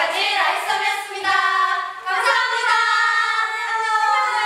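Several young women's voices singing together in unison, short phrases at first, then a long held note through the second half.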